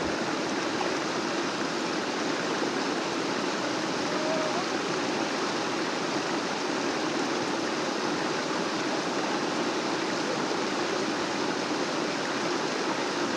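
Fast-flowing water rushing steadily, an even, unbroken rush of swollen water after heavy rain.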